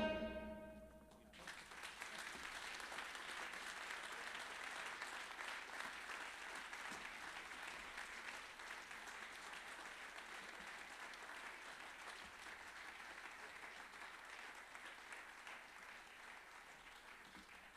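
The saxophone and trumpet's final held note dies away about a second in. Then an audience applauds steadily, slowly fading toward the end.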